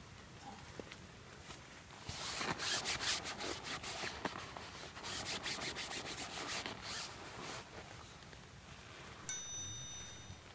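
Fabric rubbed in quick repeated strokes, wiping spilled hot liquid off clothing. Near the end, a single light metallic ding rings for about a second.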